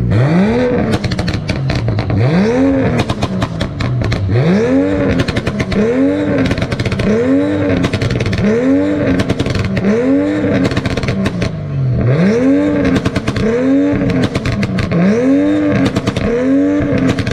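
A car engine revved again and again, its pitch climbing and falling back about once a second, with many sharp crackles throughout.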